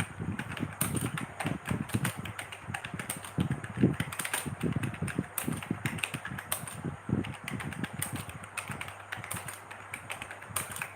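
Typing on a computer keyboard: a continuous, irregular stream of quick key clicks, several a second.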